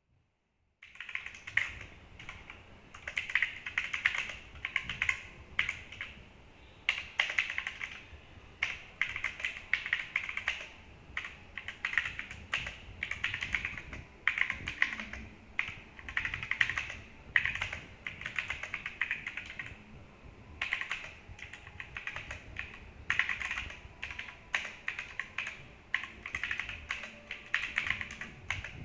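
Typing on a Cosmic Byte GK26 mechanical keyboard with red linear switches: quick runs of keystroke clacks with short pauses between bursts. The keys sound clean, which the typist puts down to factory-lubed switches.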